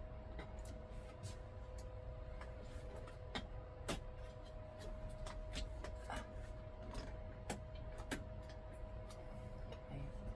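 Scattered light clicks and taps from hands handling tools and parts, a few each second at irregular intervals, over a steady hum.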